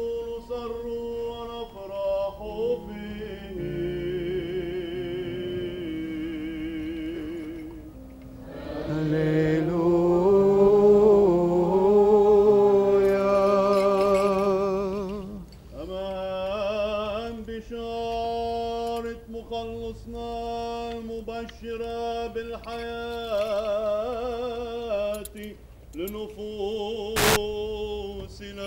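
Maronite liturgical hymn: a slow, ornamented chant sung with vibrato over steady held notes, swelling louder and fuller in the middle. A single sharp click comes near the end.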